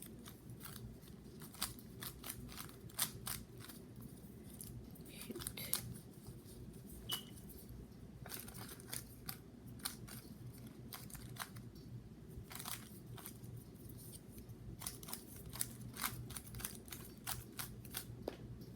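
GAN 3x3 speed cube being turned fast by hand during a solve: quick, irregular clicks of the plastic layers turning, coming in runs with short pauses, over a low steady hum.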